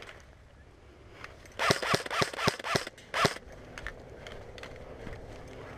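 Airsoft rifle firing: five sharp shots in quick succession about a second and a half in, about four a second, then a single shot a little after three seconds.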